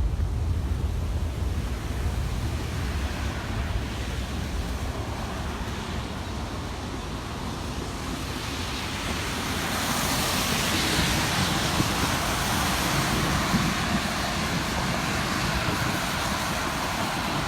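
Wind rumbling on the microphone, then from about ten seconds in a louder steady hiss of traffic driving on the rain-wet road.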